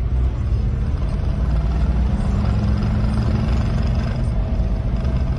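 Steady engine and road noise heard from inside the cabin of a car driving along a highway, a loud low rumble that holds even throughout.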